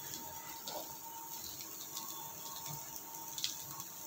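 Onions and freshly added grated coconut frying in ghee in a pan: a steady, soft sizzle with a few faint crackles.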